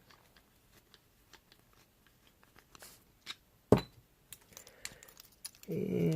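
Small metallic clicks and taps of an ASSA Ruko 2 padlock being handled and worked, with one sharp clack about three and a half seconds in, then a man's voice starting near the end.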